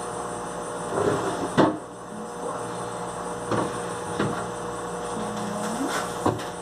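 Several separate knocks and clunks as groceries are set into a refrigerator and its door, shelves and drawers are handled, the loudest about one and a half seconds in. A steady low hum runs underneath.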